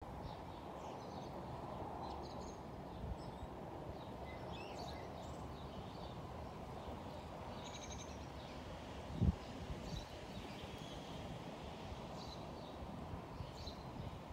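Outdoor ambience: small birds chirping and tweeting now and then over a steady background hiss, with one low thump about nine seconds in.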